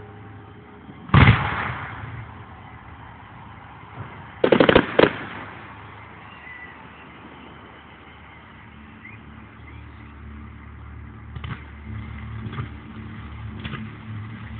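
Aerial firework shells bursting: one loud bang about a second in, then a quick cluster of four or five bangs around four and a half seconds. A few fainter pops follow in the last few seconds, while a low steady hum comes up underneath.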